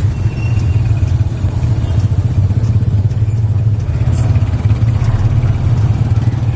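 Motorcycle engine of a tuk-tuk (tricycle taxi) running steadily while riding, a continuous low drone.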